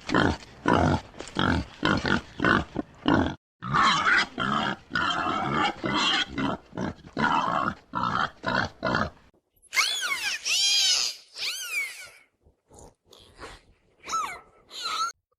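Pig grunting rapidly in short repeated grunts for most of the time, then, after a short break, a run of high-pitched squeals that slide up and down in pitch.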